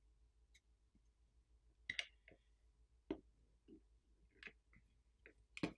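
Faint, scattered clicks and light taps of an iPhone's internal parts and small tools being handled as the motherboard is lifted over, about eight in all, the sharpest just before the end.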